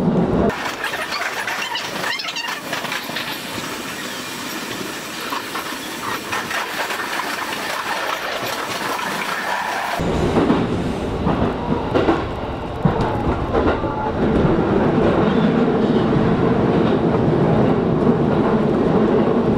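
JR East E233-series electric train running, heard from the driver's cab: steady rolling noise of wheels on rail with a few clicks over rail joints. About half a second in the sound turns thin and hissy with the low rumble gone, and about ten seconds in it returns to a full, low rumble.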